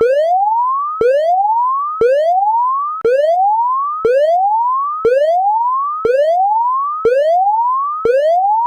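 Electronic alarm tone sweeping up in pitch about once a second, each rise cutting off sharply and starting again low, repeating steadily and loud.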